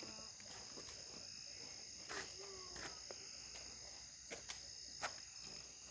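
Steady, faint high-pitched chorus of insects, with a few faint short clicks.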